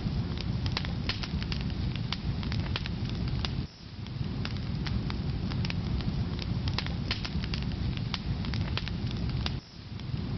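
Firewood burning in a fireplace: a steady low rumble of flame with frequent sharp crackles and pops. The sound briefly drops away twice.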